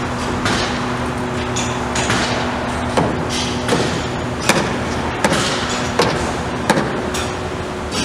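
Building-site noise: a steady machine hum under repeated sharp hammer-like knocks, about one every three-quarters of a second from about three seconds in.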